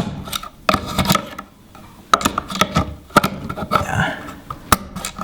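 Knockout tabs being punched out of the back of an electrical switch box: a series of irregular sharp clicks and knocks.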